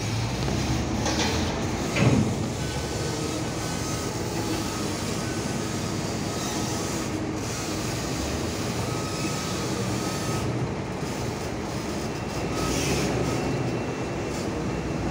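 Container truck pulling a trailer loaded with two 20-foot shipping containers, rolling slowly past, its engine running and the trailer rumbling and rattling. There is one loud clank about two seconds in.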